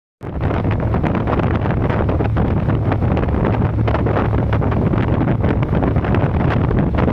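Wind buffeting the microphone over the steady low drone of a high-speed passenger ferry's engines, starting abruptly after a brief dropout.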